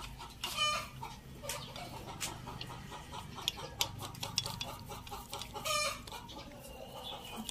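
Chickens clucking: two short, loud calls, one about half a second in and one near the end. Between them come light metal clicks and taps from a hand tool working the valve buckets in a Suzuki K6A engine's aluminium cylinder head.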